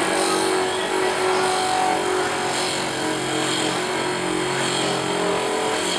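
Abrasive grinding wheel of a tap re-sharpening machine grinding the flutes of a steel tap: a steady grinding hiss with a low hum underneath.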